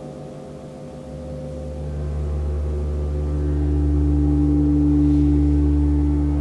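Gong ringing as a sustained drone of several steady overtones. A deep hum swells in about a second in and keeps building, and a higher tone comes in about halfway through.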